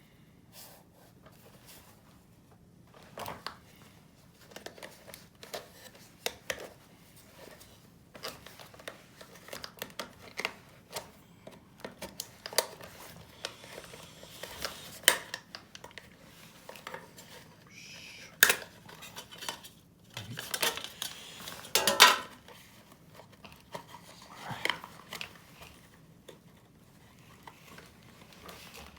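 Small metal and plastic parts and tools being handled: irregular clicks, taps and short scrapes, with louder clatters about two-thirds of the way through. No motor is running.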